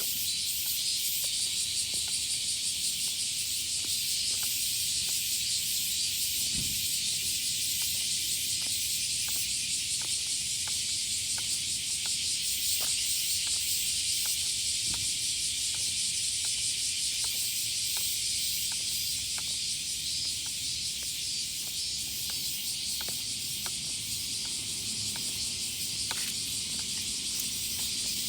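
A loud chorus of many cicadas singing together, a dense high-pitched shrill hiss that holds steady throughout.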